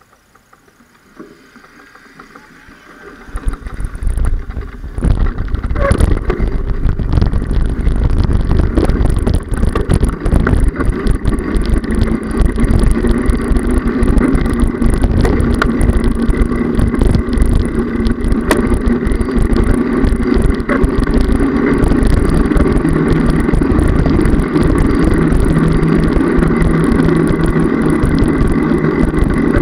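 Bicycle riding off and rolling along a paved path, heard through a handlebar-mounted camera: wind rush and road rumble on the microphone, building from near quiet in the first seconds to a loud, steady rush.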